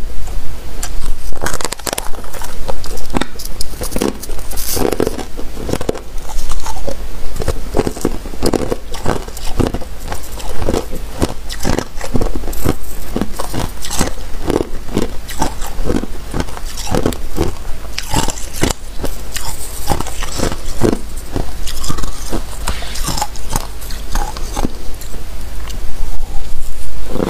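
Freezer frost being bitten and chewed close up: a steady run of crunches, about two a second.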